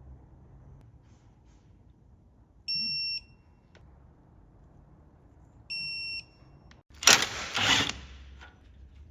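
Two short electronic beeps about three seconds apart, each a single steady tone lasting about half a second, then a loud hiss-like burst of noise in two quick pulses, about a second long in all.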